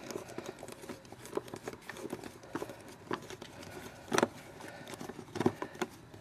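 Screwdriver turning a screw out of a plastic ride-on toy body, giving irregular small clicks and scrapes, with a louder knock about four seconds in and another a little after five seconds.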